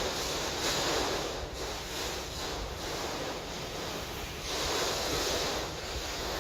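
Tornado wind rushing steadily, swelling louder about a second in and again near the five-second mark.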